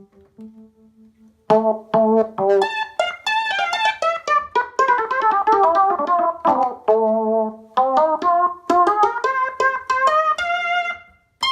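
Alesis Micron synthesizer played through monitor speakers: a few faint notes, then from about a second and a half in a quick run of short melodic notes.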